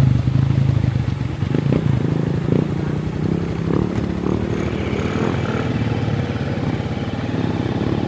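Small motorcycle engines running at low speed over a stony riverbed, a steady hum with scattered clicks and clatter from the loose stones.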